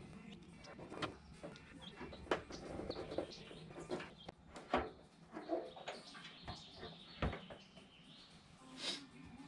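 Scattered light metallic clicks and knocks from a hand tool working on a classic Mini's boot lid fittings, with birds chirping faintly in the background.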